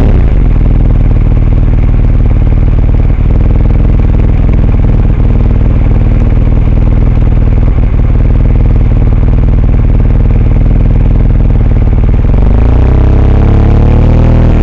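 A car's engine and road noise picked up by a dashcam microphone inside the cabin: a loud, steady low rumble with rattling. About two seconds before the end, a rising pitched sound comes in over it.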